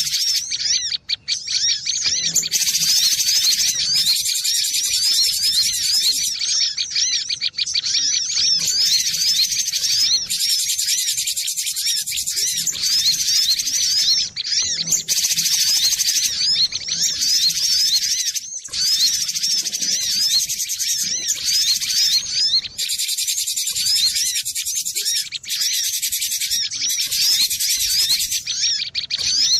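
Cinereous tit (glatik batu) singing a fast, continuous run of high chirping notes, repeated many times a second with hardly a pause.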